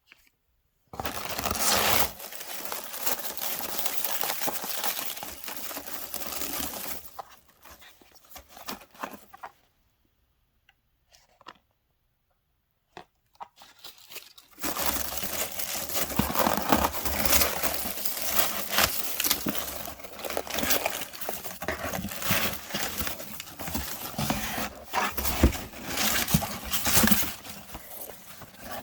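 Packaging being unwrapped by hand, crinkling and tearing. It starts about a second in and runs for several seconds, pauses with only a few small clicks, then resumes about halfway through and carries on with continuous rustling and crackles.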